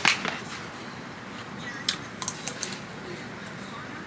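Eating sounds at a meal of fried wings and fried rice: a sharp click right at the start, then a run of small clicks and taps about two seconds in, such as cutlery and takeout containers make.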